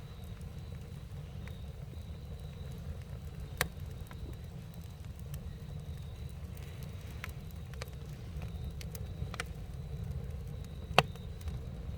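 Campfire crackling: scattered sharp pops and snaps over a steady low rumble, with one loud pop near the end.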